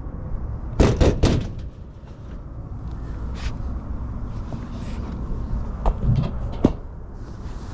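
A series of knocks and clunks: three close together about a second in, then scattered single knocks, over a steady low rumble.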